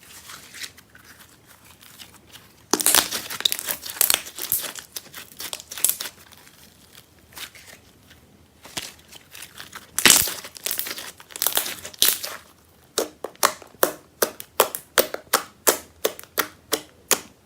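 Clear glitter slime being squished and stretched by hand, making sticky crackling sounds, with louder stretches about three seconds in and around ten seconds in. Near the end it turns into an even run of short wet pops, about three a second, as the slime is pressed and released.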